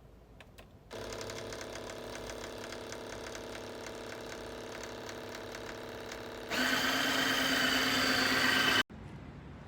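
Tineco iFLOOR cordless wet-dry vacuum mop's motor starting up about a second in and running with a steady hum. It steps up to a louder, higher whine about two-thirds of the way through, then cuts off abruptly near the end.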